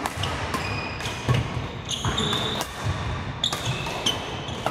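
Badminton rally: rackets striking the shuttlecock in a string of sharp hits, with sneakers squeaking briefly on the wooden court floor about two seconds in and again near the end, and footsteps, all echoing in a large hall.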